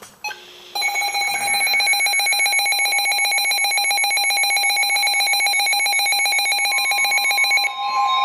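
Emergency weather-alert alarm for a severe thunderstorm warning: a loud, very rapidly pulsing electronic beep lasting about seven seconds. A steady warning tone comes in under it about a second before the beeping stops.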